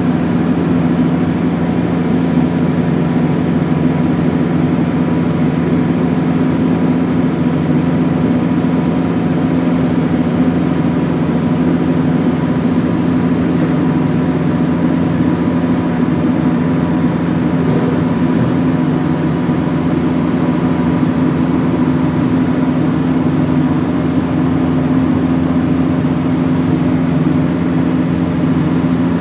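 A steady, loud low hum with a few fixed tones, like a running motor or fan.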